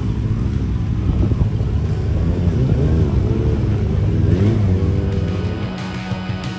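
An engine revving up and down again and again. About five seconds in, music with a steady beat comes in and takes over.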